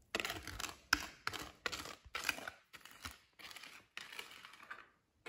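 A wire hand whisk beating a custard or egg mixture, its wires scraping and clicking against the side of the container in short, irregular strokes, about three a second.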